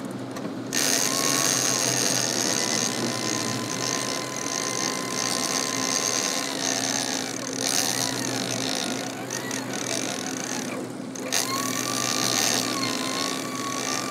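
Big-game trolling reel's drag whining in a wavering tone as a hooked wahoo pulls line against the bent rod. Underneath, the boat's engines hum steadily with a rush of wind and water.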